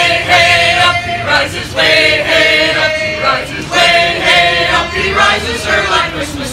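A small mixed choir of men and women singing a Christmas carol a cappella, in long held notes with short breaks between phrases.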